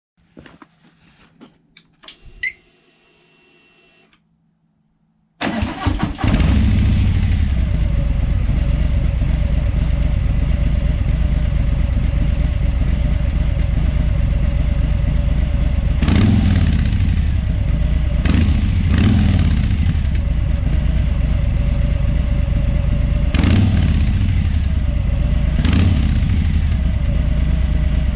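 Harley-Davidson Street Bob FXBB V-twin with Miller slip-on mufflers being started while standing. First come a few faint clicks, a short beep and a low hum as the ignition is switched on. About five seconds in the starter cranks and the engine catches, then settles into idle with about five short throttle blips that rise and fall.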